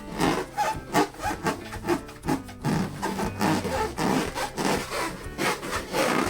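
Hands rubbing and squeezing latex balloons: a quick run of short squeaky rubbing strokes, about three a second.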